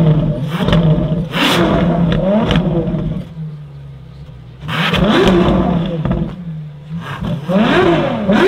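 A supercar engine at idle, blipped hard so the revs shoot up and fall back: several quick blips in the first three seconds, then single blips about five seconds and eight seconds in, settling back to a steady idle between them.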